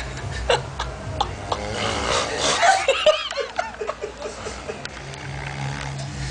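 Snoring, a low drone at the start and end, with someone's stifled giggling in the middle of the stretch.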